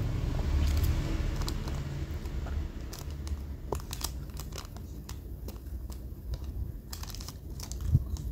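Handling noise close to the microphone: crinkling with scattered small clicks and one louder knock near the end.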